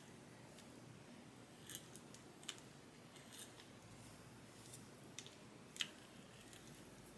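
Faint, sharp clicks and snips, a few over several seconds with the loudest about six seconds in: a flat iron's plates clapping shut and sliding along the hair as it is curled.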